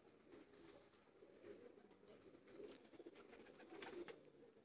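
Domestic pigeons cooing faintly and low, with a few soft clicks.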